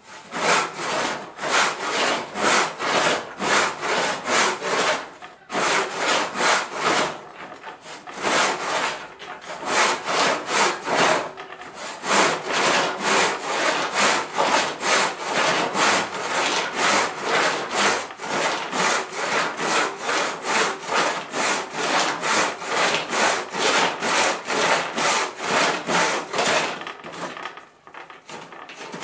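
Hand rip saw ripping along the grain of a dense 6 cm thick block of jala, a West African mahogany-type hardwood. It makes steady back-and-forth rasping strokes, about two and a half a second, with a short break about five seconds in, and the strokes fade near the end. The saw is a coarse 4-teeth-per-inch Peugeot rip saw that has never been sharpened.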